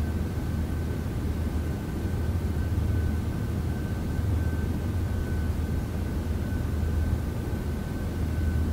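A steady low droning hum with a thin, constant high whine over an even hiss.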